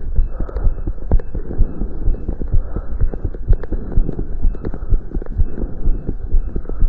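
Fast heartbeat heard through a stethoscope, about two beats a second, each beat a low double thump, over a constant rushing noise. The quickened rate comes from the exercise the heart is under.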